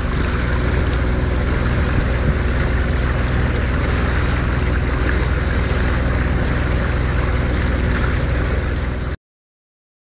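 A boat's engine running at a steady drone with water rushing past the hull, heard aboard a moving boat. It cuts off suddenly about a second before the end.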